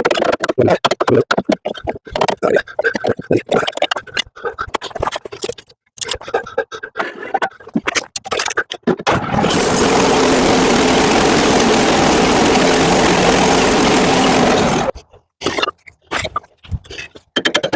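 Portable sawmill's gas engine running steadily for about six seconds in the middle. Before and after it comes a rapid, choppy string of short sounds broken by brief gaps.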